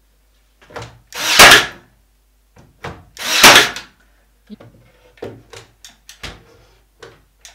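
Ryobi AirStrike cordless nailer firing twice, about two seconds apart, each a short loud burst ending in a sharp shot. A run of lighter clicks and knocks follows as it is set against the board. The nailer is overheating and beginning to fail.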